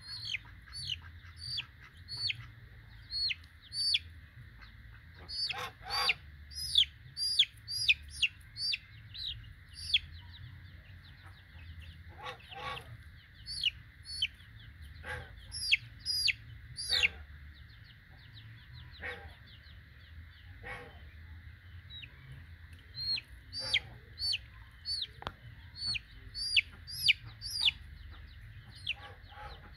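Young Bangkok gamefowl chicks, 24 days old, peeping: short, high calls that each fall in pitch, repeated in runs of about two a second with short pauses between.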